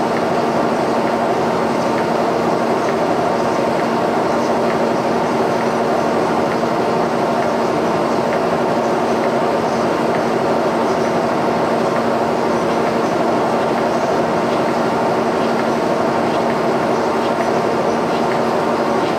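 Line-boring bar turning steadily under its drive motor as the cutter rebores a worn, egg-shaped bushing hole in a trailer suspension frame: a constant hum and cutting noise with faint ticks.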